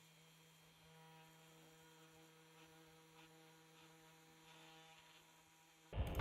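Faint steady hum: one low tone with fainter overtones above it, close to near silence.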